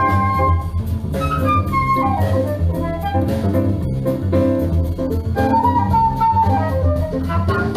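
Jazz music played through Lipinski Sound L707 Monitor loudspeakers, heard in the listening room, with a steady bass line under a melody that slides in pitch.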